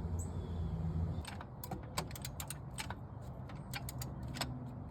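Light metallic clicks and clinks of hand tools being worked at irregular intervals, under a low hum that fades out after about a second.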